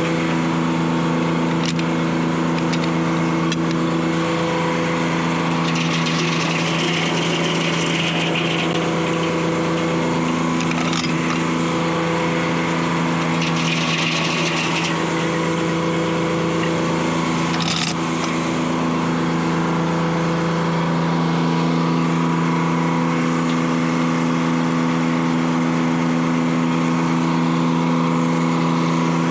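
Detroit Diesel 3-71 two-stroke three-cylinder diesel power unit running steadily at speed while it drives the sawmill. A few brief higher hissing patches and light clicks sound over it.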